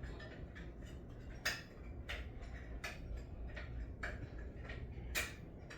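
A string of separate sharp clicks and light knocks, about one every half second to second, the loudest about one and a half seconds in and again near the end: hand tools and metal parts being handled during work on a lawnmower.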